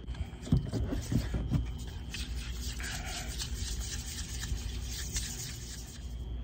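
A plastic fork stirring barbecue sauce into mayonnaise in a bowl: quick scraping strokes against the bowl, with a few low thumps of handling in the first second and a half.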